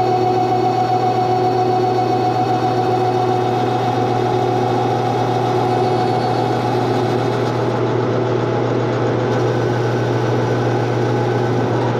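Metal lathe running steadily, a constant hum with a higher steady tone above it, as a CNMG 432 carbide insert turns the old splines off the end of a hardened steel axle, an interrupted cut.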